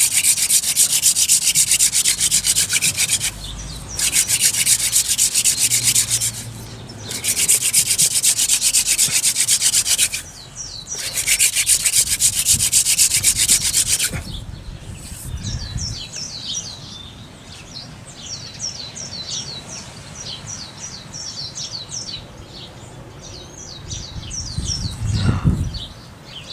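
Wooden hand-drill spindle spun between the palms and grinding in the hearth board's socket: four runs of fast, scratchy friction, each three to four seconds long, with short breaks as the hands go back up the spindle. After that the friction stops and small high chirps of birds are heard.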